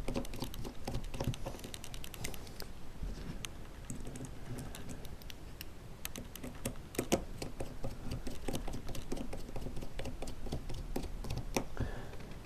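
Small machine screws being turned in with a small screwdriver to fasten a brushless gimbal motor to its metal mounting plate: a run of light, irregular clicks and ticks of tool and metal parts, a little louder about seven seconds in.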